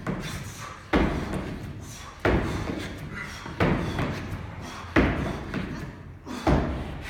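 Feet landing on a wooden plyo box during repeated jumping pull-ups: five heavy thuds, about one every second and a half, each fading quickly.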